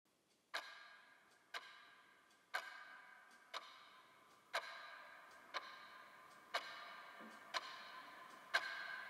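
Clock ticking steadily once a second, the ticks alternating stronger and weaker in a tick-tock pattern, each with a short ringing trail.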